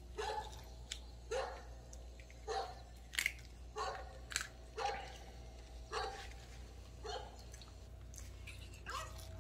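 Maltese giving a series of short barks, roughly one a second.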